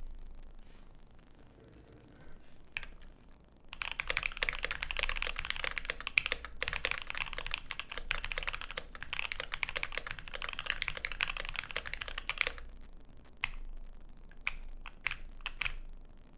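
A few single key clicks, then about nine seconds of fast, continuous typing on a KBDfans D65 mechanical keyboard fitted with lubed and filmed Alpaca linear switches, an FR4 plate, EPBT Kuro Shiro PBT keycaps and a tape mod. The typing stops abruptly, followed by scattered single keystrokes.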